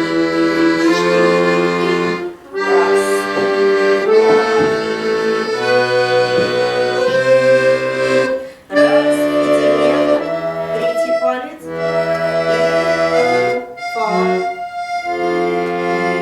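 Accordion playing the C major scale legato with both hands, slowly, the notes stepping upward one by one over a lower part. The sound breaks off briefly about three times.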